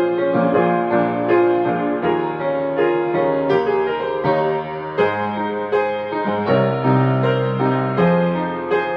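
Solo piano playing the accompaniment of a children's choral song, without the voices: steady repeated chords over bass notes.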